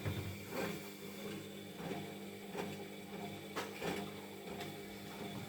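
Siemens washing machine drum tumbling a small wet load in the early wash, before heating: a steady motor hum with soft swishes and thuds of wet clothes and water falling in the drum, roughly once a second.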